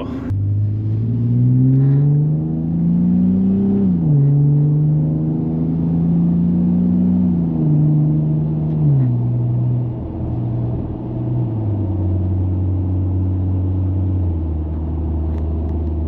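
2018 Ram 1500's 3.6-litre Pentastar V6 through a Magnaflow Pro Series turn-down cat-back exhaust, heard inside the cab as the truck accelerates through the gears. The engine note rises, drops at upshifts about four and nine seconds in and again a couple of seconds later, then settles into a low, steady cruise. The note is calm in the cab.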